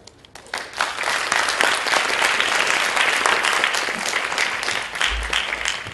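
Audience applauding, many hands clapping at once. It swells within the first second and starts to thin out near the end.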